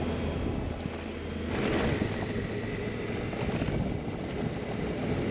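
Honda Africa Twin motorcycle riding down a gravel road: the engine runs under wind noise on the microphone, which gets louder and rougher about a second and a half in.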